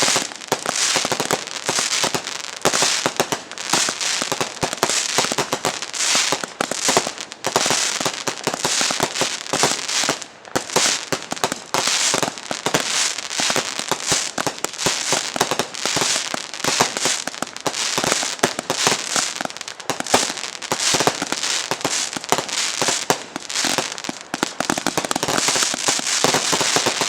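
Tokyo Rose 192-shot XL aerial finale cake firing in rapid succession: a dense, continuous string of shots and bursts, many a second, with crackle, and no pause.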